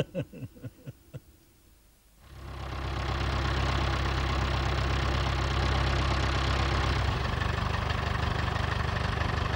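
Brief laughter at the start, then after a second of quiet an engine fades in and runs steadily at idle.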